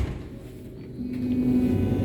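Berlin U-Bahn train, a quiet low rumble, then a steady low hum starting about a second in.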